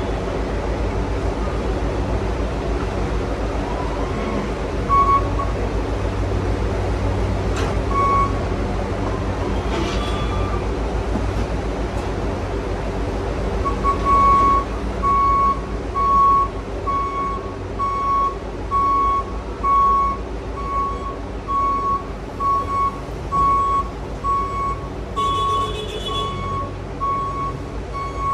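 Crown electric reach truck running with a steady motor hum. Its warning beeper sounds a few single beeps, then beeps steadily about once a second from about halfway through as the truck moves off.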